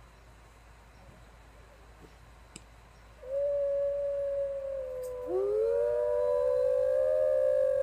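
Recorded wolf pack chorus played through laptop speakers: one long howl begins about three seconds in, and a second, rising howl joins about two seconds later, the two voices overlapping.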